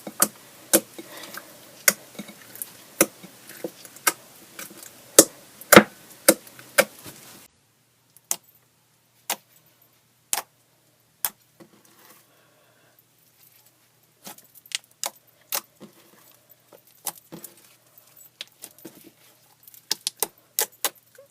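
Glue-and-cornstarch slime being squeezed and pressed by hand, giving sharp, irregular clicks and pops from trapped air, about one every half second to second.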